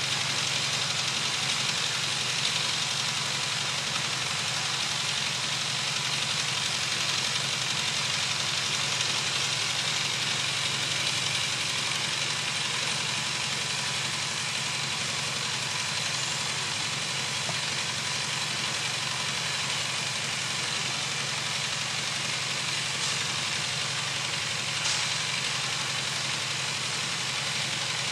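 Steady background hum and hiss with no distinct events.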